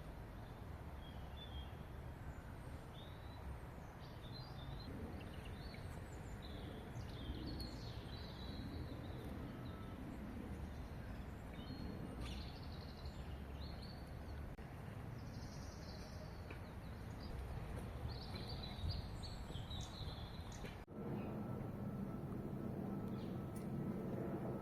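Faint chorus of wild birds chirping and calling over a low steady rumble of distant road traffic. Near the end the sound cuts abruptly to a louder, steady engine-like hum.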